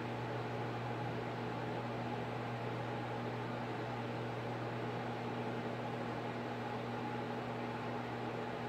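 A steady machine hum with a low drone and an even hiss, unchanging throughout.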